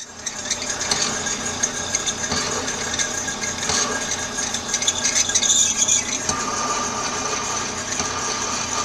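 Metal lathe running under load as a 23/32-inch Morse taper twist drill cuts into a spinning hand wheel blank: steady machine noise with a hiss of cutting and a faint whine that steps lower about six seconds in.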